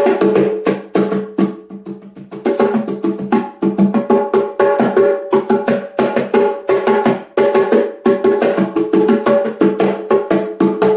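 Instrumental music of fast, evenly repeated percussive notes over steady pitched tones, with no voice. It thins out briefly about two seconds in.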